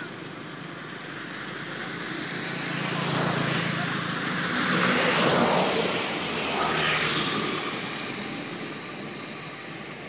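Road traffic passing close by: the sound swells over a few seconds, peaks in the middle and fades away.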